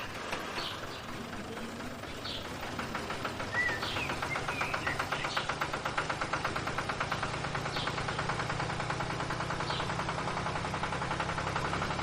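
A small motor-driven machine running with a fast, even pulse and a low hum, starting a few seconds in and slowly growing louder. Birds chirp now and then.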